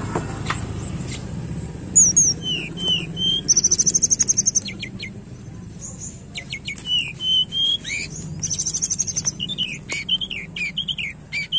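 Tledekan gunung (hill blue flycatcher) singing a varied song of short sliding whistled notes, beginning about two seconds in. Twice it breaks into a fast, high buzzy trill, and it ends with a run of quick down-slurred notes.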